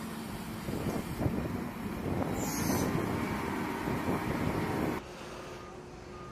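Loud rushing outdoor noise with scattered knocks for about five seconds. It then drops suddenly, and a vehicle's reversing alarm starts beeping at a steady pitch, about once a second.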